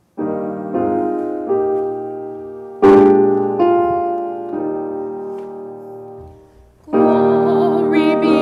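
Piano playing slow chords, each struck and left to ring and fade, as the introduction to a sung solo. About seven seconds in a louder passage begins and a woman's singing voice joins in.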